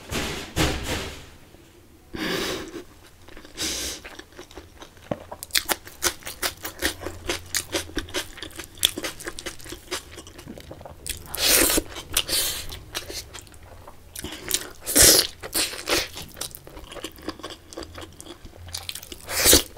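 Close-miked chewing and mouth sounds of a person eating rice and masala egg curry by hand: many small wet clicks and crunches, with a few louder smacks, one about halfway through, one around three-quarters, and one near the end.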